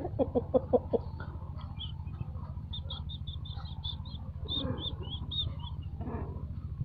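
A chicken clucks five times in quick succession, then a small bird chirps repeatedly, high and rapid, about four chirps a second. A steady low hum runs underneath.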